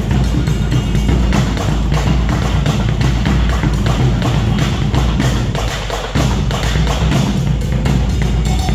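Loud dance music with a heavy bass beat and drums, the bass thinning out briefly about six seconds in before coming back.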